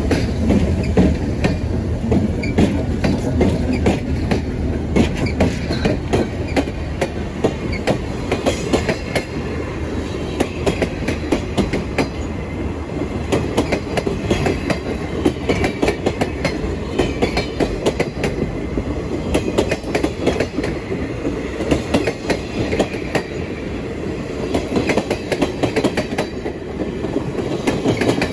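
Slow-moving train rolling past at close range, mostly freight cars and old passenger coaches: a steady rumble with wheels clicking and clunking over rail joints, and a faint wheel squeal. A deep engine hum from the locomotives fades about a second in.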